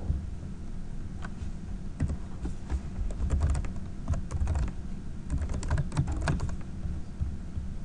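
Typing on a computer keyboard: a run of quick keystrokes starting about two seconds in and another about five and a half seconds in, over a low steady hum.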